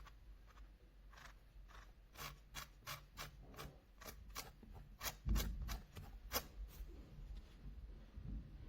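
Keys of an AULA S98 Pro mechanical keyboard being pressed one at a time: a run of separate clicks, a few a second, for about six seconds, stopping a little before the end.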